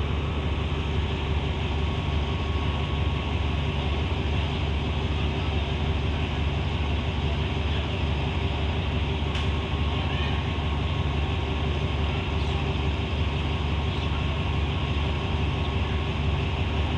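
Diesel locomotive engine running steadily at idle, a continuous low drone with a faint click about nine seconds in.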